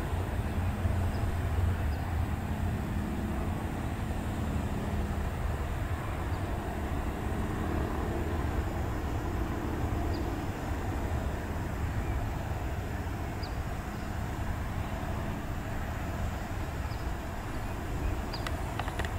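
Steady rumble of nearby road traffic, cars and trucks driving by, with a low engine hum that comes and goes.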